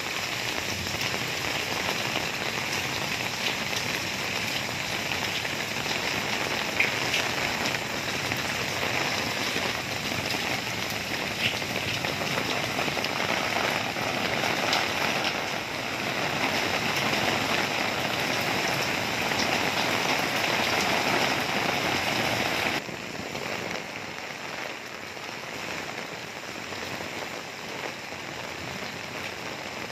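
Heavy rain falling steadily, a dense hiss with a few sharper drop hits close by. About three-quarters of the way through it abruptly becomes quieter but keeps falling.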